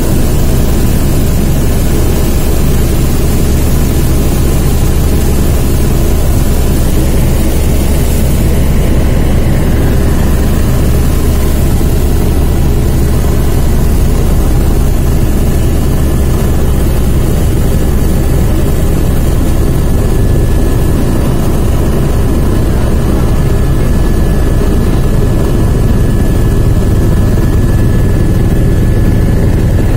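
Helicopter engine and rotor noise heard from inside the passenger cabin in flight: a loud, steady low drone with a thin whine above it.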